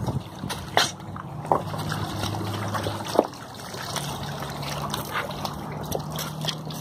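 Shallow river water trickling and splashing around a wading dog as it steps out onto the stones, with a few sharp knocks against rock about one, one and a half and three seconds in. A faint low hum sits underneath.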